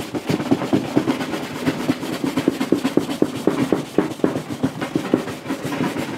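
Cloth rag rubbing vigorously back and forth over a waxed wooden cabinet, several quick strokes a second, buffing a hard carnauba wax coat to a shine.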